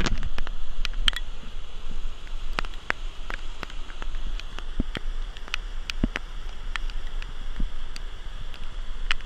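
Muddy stormwater rushing and churning through a rock-lined drainage channel dug to carry storm runoff, a steady rush of water. Many sharp taps are scattered through it.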